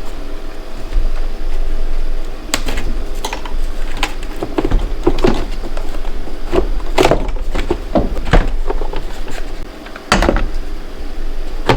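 Plastic knocks, clicks and scraping of a car's air box being worked loose and pulled out of the engine bay, with a couple of louder knocks about 7 and 10 seconds in, over a steady low hum.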